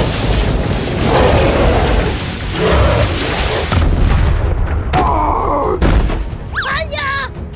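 Cartoon explosion sound effects: a long, loud blast and rumble as the energy sphere bursts, then a sharp impact and a heavy thud as the robot hits the ground. Near the end a wavering, gliding cartoon effect sounds.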